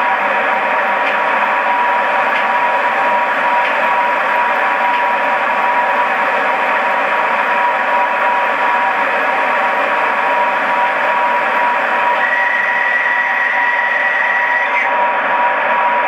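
Sound decoder of an LGB 20755 G-scale class 139 electric locomotive model playing the loco's running sound through the model's small speaker: a steady hiss of running noise with a constant whine. A higher steady whistling tone joins about twelve seconds in and stops about three seconds later.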